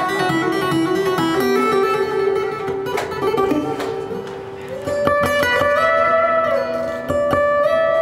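Solo acoustic guitar playing, picked notes and chords ringing on, with a few sharper strummed strikes.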